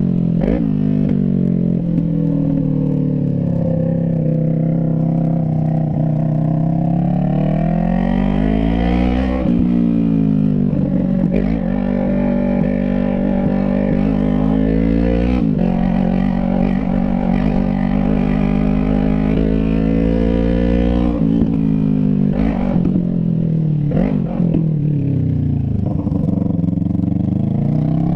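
Yamaha MT-03 parallel-twin engine through a straight pipe with no muffler, heard from the rider's seat while riding. The engine pitch climbs and falls several times as the bike accelerates and the rider shifts or rolls off the throttle, with a few sharp cracks at some of these changes.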